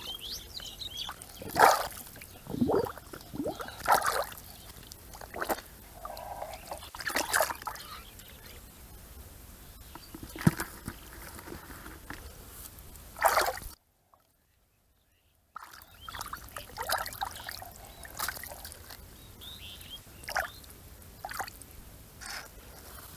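Water splashing and sloshing in irregular bursts, with a few sharper splashes. The sound cuts out completely for about two seconds just past the middle.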